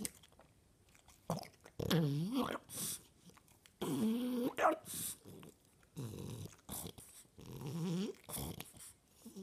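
French bulldog vocalizing: about five drawn-out, pitched grumbling calls, each half a second to a second long and dipping then rising in pitch, with short pauses between them.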